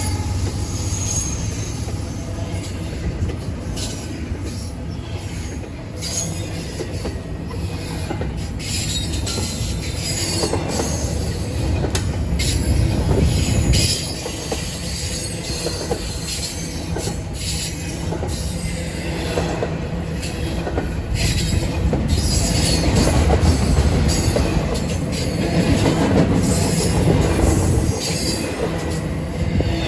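A train rolling past: a continuous low rumble of wheels on rail, with scattered metallic clanks and some high wheel squeal.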